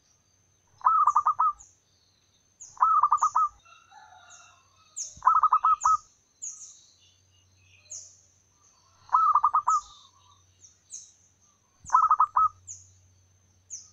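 Zebra dove cooing: five short bursts of rapid, trilled coo notes, a few seconds apart. Between and under them, another bird gives a string of faint, high, falling chirps.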